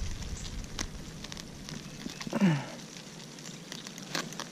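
A mass of live crawfish pouring out of a cut mesh sack onto grass: a dense crackle of shells and claws clicking together. A short low grunt breaks in about two and a half seconds in.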